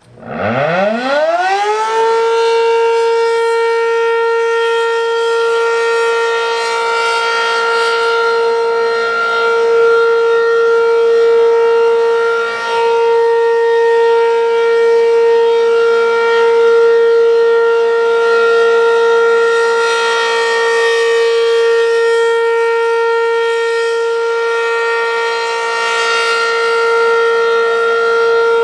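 ACA P-15 outdoor warning siren starting up, its pitch rising steeply over the first two seconds. It then holds one loud steady tone rich in overtones, swelling and fading slightly, as in a steady alert test signal.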